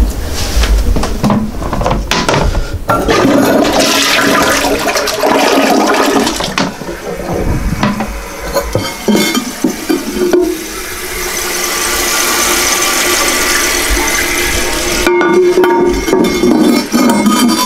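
A newly installed toilet flushing: water rushes loudly through the bowl, then the tank refills with a hiss.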